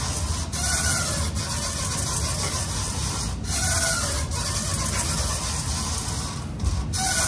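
Seated chest-supported row machine being worked through a set of slow reps, its mechanism rubbing and clicking, with a faint squeak coming back about every three seconds, over a steady hiss of gym background noise.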